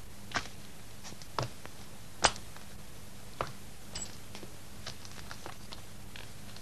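Steady hiss and low hum of an old film soundtrack, broken by sparse sharp clicks and pops about once a second, the loudest a little past two seconds in.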